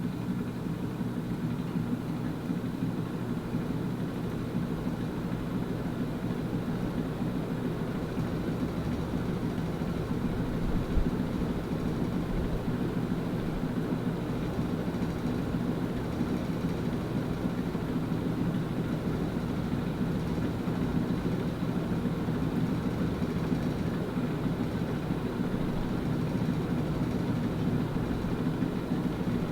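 Supreme Mark III Emperor-style ceiling fan running: a steady motor hum over a low bearing rumble, a sign of the fan's worn bearings.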